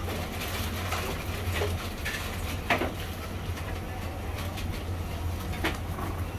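Steady low background hum with a few light clicks and knocks, one clearer knock a little under halfway through, as boiled lamb heads are picked apart by hand on a steel tray.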